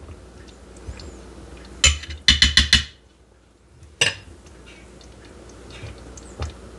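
Metal spoon clinking against the stainless steel inner pot of an Instant Pot: one knock about two seconds in, a quick run of about four taps right after, and one more about four seconds in.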